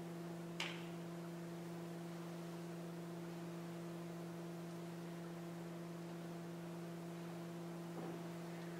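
Steady electrical hum made of a low tone and a higher tone, with a single sharp click a little over half a second in.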